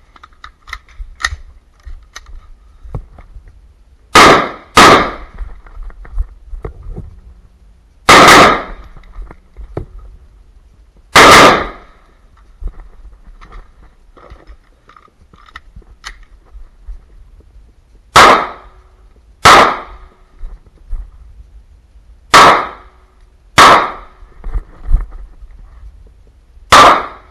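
Gunfire in a practical shooting stage: an AR-15 rifle fires its strings of shots, then after a pause of about six seconds for the switch, a CZ P-09 pistol fires shots in pairs about a second apart. Small clicks and rattles of gear and movement fall between the shots.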